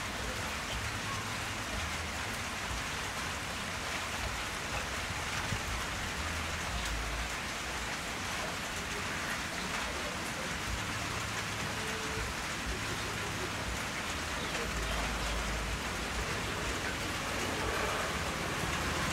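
A steady, even hiss like falling rain.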